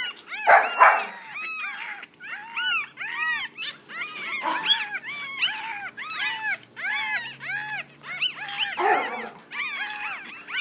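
Week-old Yorkshire terrier puppies crying and whimpering: a steady run of short, high squeaks, each rising then falling in pitch, about three a second, with several pups overlapping.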